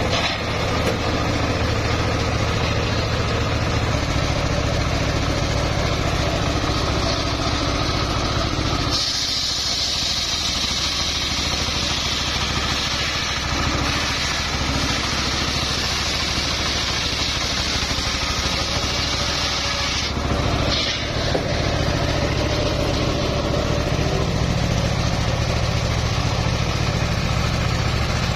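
Homemade engine-driven table circular saw running steadily while its blade rips a log lengthwise. From about nine to about twenty seconds in, a louder, higher cutting noise rises over the engine's steady hum.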